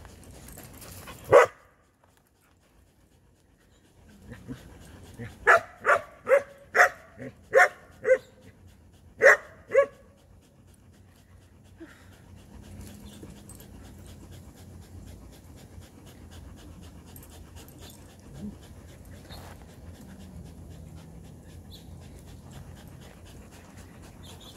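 A dog barks once, then after a short pause gives a quick run of about eight sharp barks. After that comes steady dog panting.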